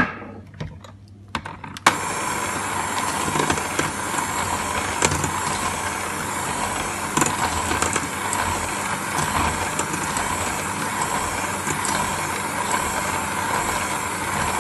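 Electric hand mixer switching on with a click about two seconds in, then running steadily on a slow speed, its wire beaters whisking egg, sugar and oil batter in a steel bowl.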